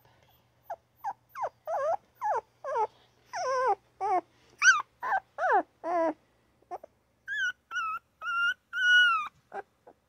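Newborn puppy crying and yipping: a quick run of short whimpering yelps, most falling in pitch, then a few longer, higher, steadier cries in the second half.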